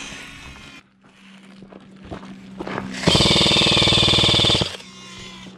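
Airsoft electric gun firing one full-auto burst of about a second and a half, a rapid even rattle of shots over the whine of the gearbox motor, starting about three seconds in.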